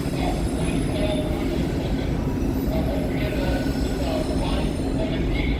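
Toronto Rocket subway train running: a steady low rumble under a constant hum.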